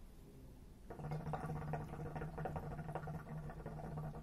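Hookah water bowl bubbling as smoke is drawn through the hose, starting about a second in: a steady low gurgle with rapid bubbling that lasts about four seconds.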